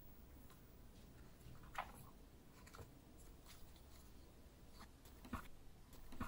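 Pages of a thick book being leafed through by hand: faint, scattered paper rustles and flicks over a low room hiss.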